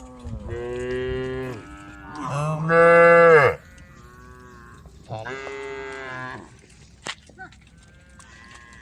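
Cows mooing: three long calls, the second, about two seconds in, the loudest.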